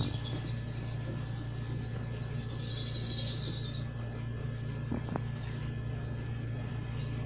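Young lovebirds giving rapid, high begging chirps as they are hand-fed from a spoon, stopping about four seconds in. A steady low hum runs underneath, and there are a couple of faint clicks near the end.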